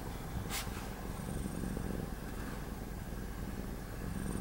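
Domestic cat purring close to the microphone as it dozes against a person: a low, steady, rhythmic rumble.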